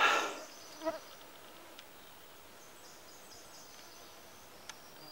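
Mosquitoes whining briefly close to the microphone about a second in, after a short rustle at the very start; then a quiet background with a few faint high chirps.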